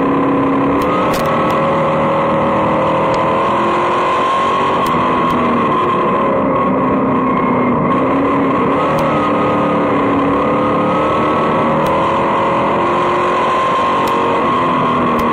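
Vintage dirt-track race car's engine heard from inside the cockpit at racing speed, loud and steady, its pitch dipping and rising a few times as the throttle is lifted and reapplied around the track.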